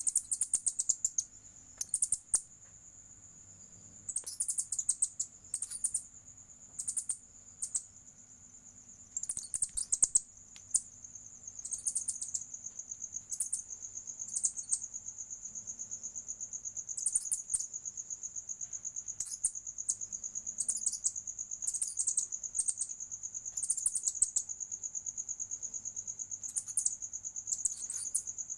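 Steady high-pitched insect trilling, pulsing in a regular rhythm, broken by repeated short bursts of loud, very high chirps in the first half.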